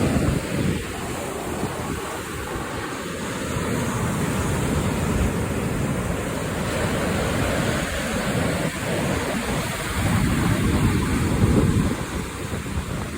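Ocean surf washing in, with wind buffeting the microphone in a low, uneven rumble. The rush swells louder about ten seconds in, then eases off.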